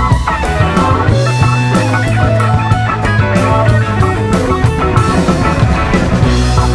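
Live rock band playing an instrumental jam: two electric guitars, electric bass, drum kit and keyboard, with the drums keeping a steady beat.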